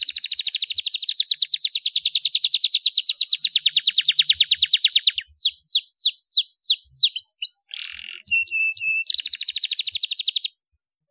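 Starblue domestic canary singing: a long, rapid, high trill, then about six quick falling whistles, a short buzzy note and another fast trill. The song stops abruptly near the end.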